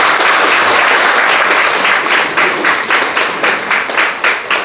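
Audience applauding: a dense wash of clapping that after about three seconds settles into rhythmic clapping in unison, about four claps a second.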